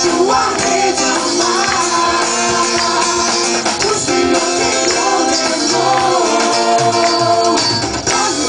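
Music: a gospel praise song with singing and tambourine.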